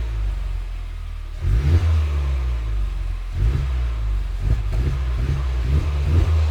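Honda Civic Type R FK8's turbocharged 2.0-litre four-cylinder running at low revs through its exhaust, a deep, even rumble. The level rises about a second and a half in, with uneven throttle pulses later on.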